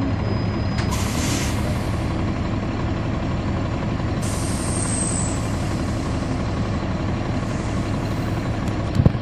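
Inside a NABI 40-SFW transit bus under way: its Caterpillar C13 ACERT inline-six diesel and ZF Ecomat six-speed automatic run steadily with a deep rumble. There is a short hiss about a second in, a high whine that falls slightly about four seconds in, and a sharp thump near the end, the loudest moment.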